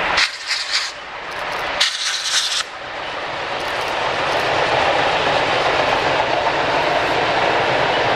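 Steam locomotive hauling a heavy freight train as it approaches. The rumble of the train grows louder over the first five seconds or so, then holds steady. Two brief hissing bursts come near the start.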